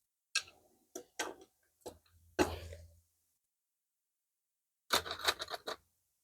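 Short clicks and knocks of hard objects being handled: a few single knocks in the first three seconds, then a quick rattling cluster of clicks about five seconds in.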